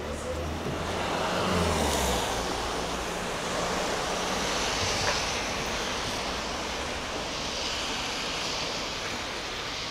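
Street traffic on a wet road: a vehicle passes, loudest about one to two seconds in, then a steady wash of traffic noise.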